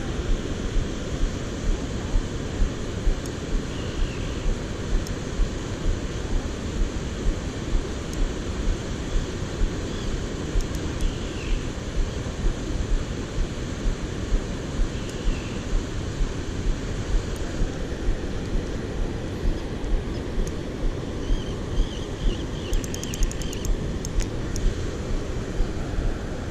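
Steady rushing noise of wind on the microphone over fast-flowing, foaming river water, with a regular low thump about one and a half times a second. A few short high chirps come and go.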